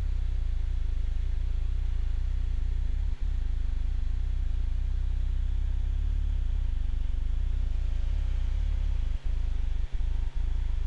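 Steady low drone of an aircraft engine heard from inside the cockpit, with faint hiss, cutting out for an instant once about three seconds in and three times near the end.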